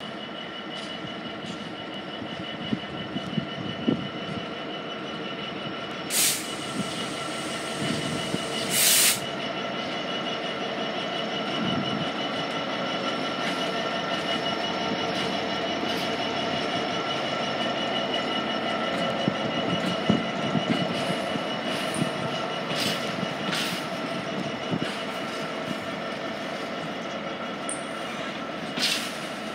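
DB Cargo Class 66 diesel locomotive hauling flat wagons past: the engine running steadily under the rumble and clatter of the wheels on the rails. Brief high wheel squeals come a few times, about six and nine seconds in and again near the end.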